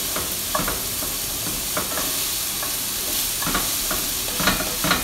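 Chopped onions sizzling in plenty of hot vegetable oil in a white enamelled pan, softening without browning. A wooden spoon scrapes across the pan's bottom now and then as they are stirred.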